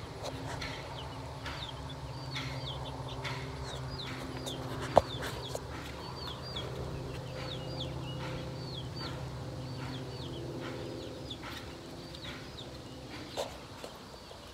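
A brood of young chicks peeping: many short, high cheeps with a downward sweep, overlapping and repeating without pause. A low steady hum runs under them and stops about eleven seconds in, and a single sharp click comes about five seconds in.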